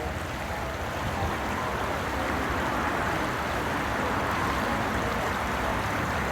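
Steady rushing of a river's flowing water, an even roar with no break, growing slightly louder in the first second or two.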